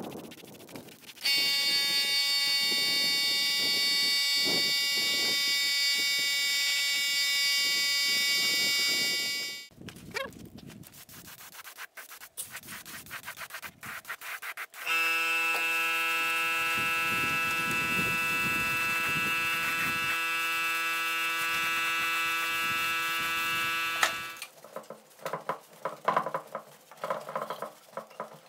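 Gravity-feed spray gun spraying paint in two long steady passes, each a whistling tone over a hiss that starts and stops abruptly, the second lower-pitched than the first. Short clicks and taps come between the passes and after them.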